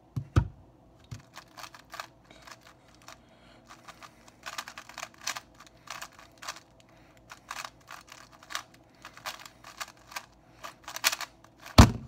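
Rapid, irregular clicking and clacking of a stickerless 3x3 speed cube being turned fast in a speedsolve. A thump comes near the start as the hands leave the timer, and a loud slap comes near the end as the solved cube is set down and the timer is stopped.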